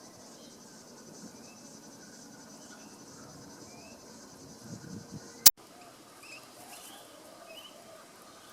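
Short faint bird chirps over a steady high insect drone, with a sharp click about five and a half seconds in, after which the drone mostly drops away.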